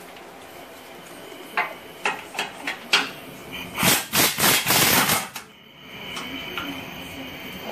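Cordless impact wrench breaking loose an underbody shield bolt. There are a few short sharp blips, then about four seconds in a burst of rapid hammering that lasts about a second and a half and stops suddenly.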